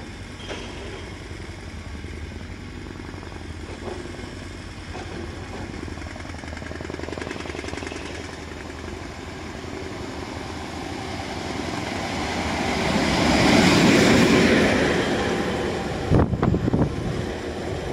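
EU07 electric locomotive running light through a station without stopping: the rumble of motors and wheels on the rails grows steadily as it approaches, is loudest as it passes about three quarters in, then falls away.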